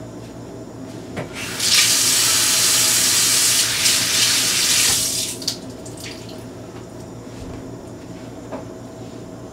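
Kitchen sink tap running for about three and a half seconds while hands are rinsed under it, starting about a second and a half in and then shut off; this is a hand wash after handling raw chicken.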